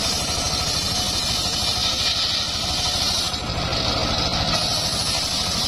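Engine of a homemade circular-saw sawmill running steadily, with a rapid even low pulsing and a steady hiss above it.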